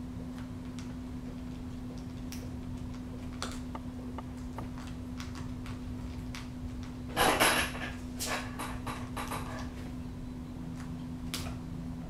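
Peregrine falcon eating quail: scattered small clicks and crunches as its beak tears at the meat, with a louder rustling scrape about seven seconds in and a few smaller ones just after. A steady low hum runs underneath.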